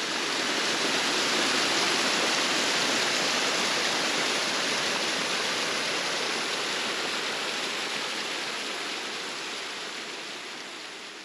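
Small waterfall splashing steadily down a mossy rock face, running with little water. The sound fades out gradually over the second half.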